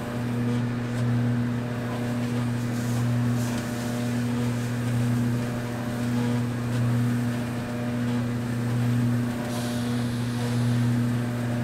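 Electric motor of a stainless steel food-mixing machine running with a steady low hum, churning a wet batch of glass noodles; the level swells and fades about every two seconds.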